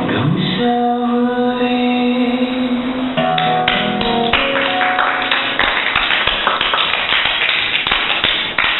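The last held notes of a live acoustic song ring out, then an audience breaks into steady clapping about three seconds in.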